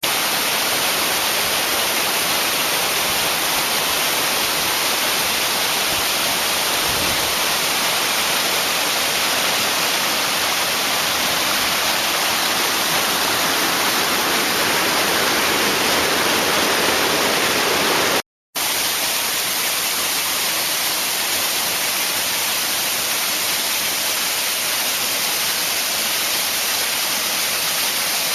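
Steady rushing of a waterfall on the Yauzlar river, falling water. It breaks off for a fraction of a second about eighteen seconds in, then carries on slightly duller.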